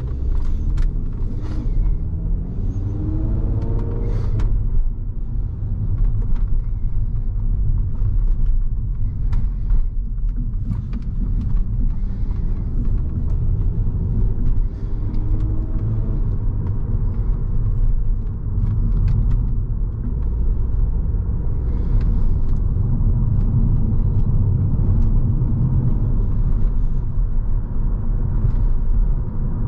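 2006 Volkswagen Passat's 3.2-litre VR6 engine and cat-deleted exhaust during steady driving, a continuous low rumble. The engine note rises as it accelerates, about three seconds in and again around fifteen seconds in.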